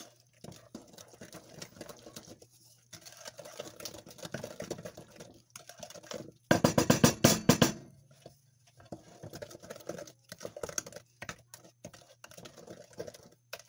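Wooden spoon stirring thick cookie dough in a glass mixing bowl, with irregular scraping and knocking against the glass. About six and a half seconds in there is a louder burst of fast beating that lasts about a second.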